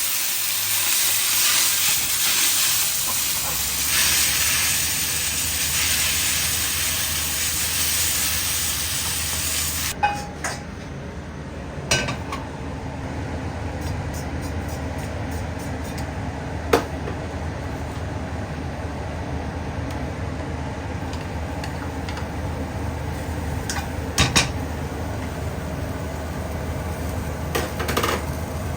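Shepherd's purse greens sizzling loudly in hot oil in a wok as they are stir-fried. About ten seconds in, the sizzle drops suddenly to a quieter hiss over a steady low hum, with a few sharp clicks of the spatula against the wok.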